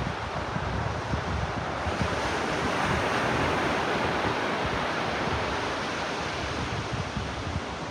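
Ocean waves washing onto a beach: a steady rushing surf that swells in the middle and eases off. Wind buffets the microphone as a gusty low rumble.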